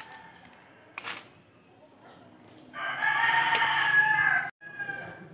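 A rooster crowing once, one long call of about a second and a half, the loudest sound here, cut off abruptly at its end.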